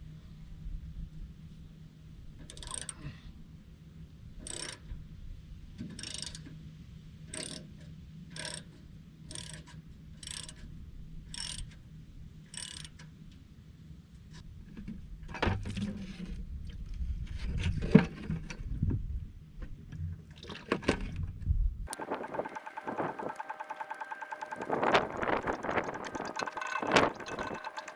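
Wrench work on the drain plug of a Furukawa FD40P bulldozer's hydraulic system: a series of short metallic clicks about once a second, then heavier knocks and clanks. Near the end, hydraulic oil pours out of the overfull system into a container.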